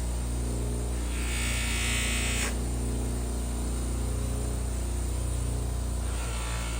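Small electric power tool motor running with a steady buzzing hum. From about one second in, a brief harsher hiss of abrasive contact lasting a second and a half, as metal is ground or sanded.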